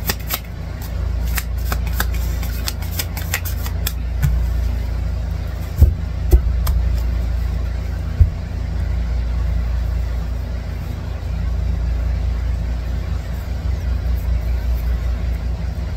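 A steady low rumble like a running engine or machine, with the light clicks of tarot cards being handled in the first few seconds and a few sharp thumps about six and eight seconds in.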